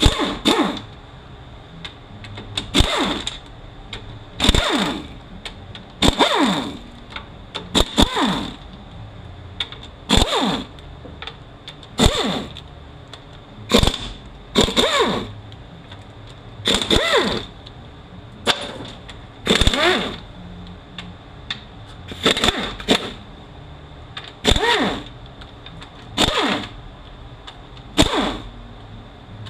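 A hand-held power tool runs in short bursts, about one every two seconds, each starting with a click and its motor pitch falling away, as it spins out a transmission's oil-pan bolts one after another.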